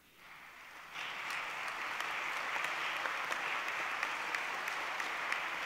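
Crowd applause, many hands clapping. It fades in faintly, rises about a second in, then holds steady.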